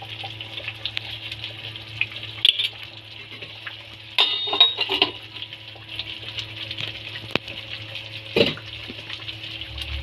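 Ground masala sizzling in hot oil in a steel kadhai, a steady hiss, with scattered metal clinks from the pan and spoon. A louder clatter comes about four seconds in, and a single knock comes about eight seconds in.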